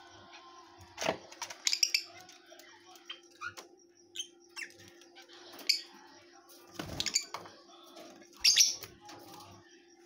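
Rosy-faced lovebirds giving short, sharp chirps a few times, with wing flutters, small ticks and a couple of knocks as they move about the cage and the feeding plate. A steady low hum sits underneath.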